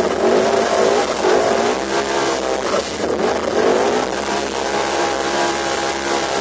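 Polaris RZR 900 Turbo UTV engine revving hard, its pitch rising and falling several times as the driver works the throttle, then holding steadier from about four seconds in.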